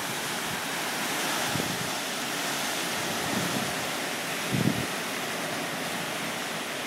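Heavy rain and wind of Hurricane Sandy, a steady hiss, with a brief low rumble about two-thirds of the way through.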